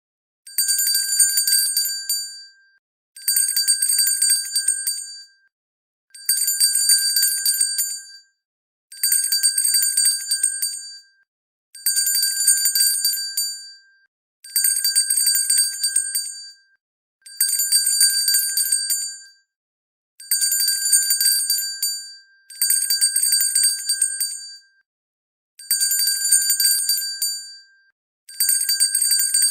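Hand bell shaken in repeated bursts, each about two seconds of rapid clapper strikes with a bright, high, ringing tone, one burst about every three seconds.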